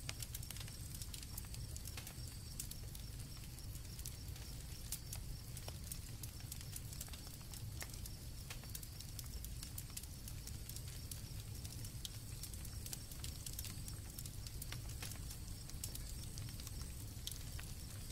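Campfire crackling and popping with irregular sharp snaps over a low steady rumble, with a faint high steady chirring of crickets behind it.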